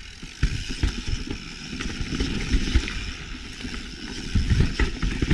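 Mountain bike riding over a rough, technical trail: tyres rumbling over rock and roots, with irregular knocks and rattles from the bike.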